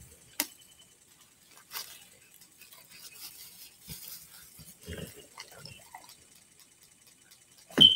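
A dog eating cake off paper on the floor: sparse wet smacking and licking clicks, with a short sharp sound near the end.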